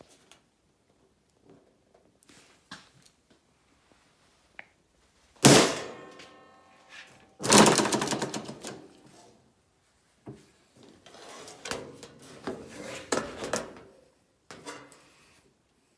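Louver die in a converted nibbler pressing louvers into sheet metal, worked by an over-centre lever: two heavy metallic clunks about two seconds apart, each leaving the sheet ringing, then a run of lighter clanks and rattles.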